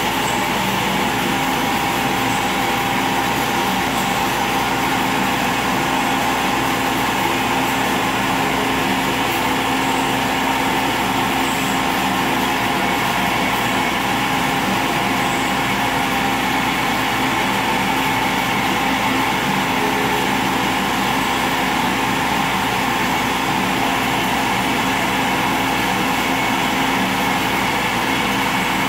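CNC router spindle and its dust extraction running steadily while the bit cuts into an aluminium composite panel.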